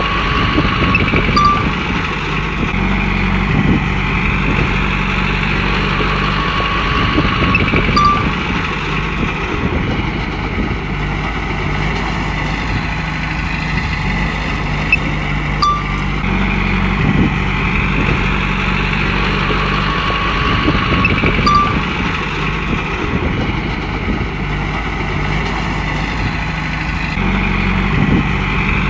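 Komatsu bulldozer's diesel engine running steadily as it works, with a higher metallic squeal that swells and fades every several seconds and occasional sharp clanks.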